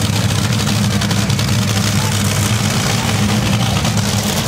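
Top Fuel dragster's supercharged nitromethane V8 idling at the starting line with a steady, heavy, lumpy rumble and no revving.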